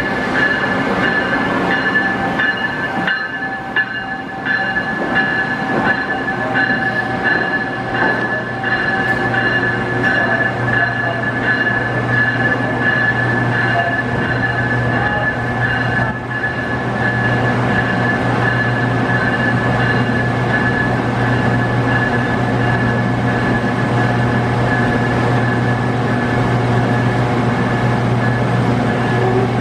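Amtrak passenger locomotives standing at a station platform: a steady mechanical hum with high whining tones. There are a few sharp knocks in the first ten seconds, and a low hum grows stronger from about halfway through.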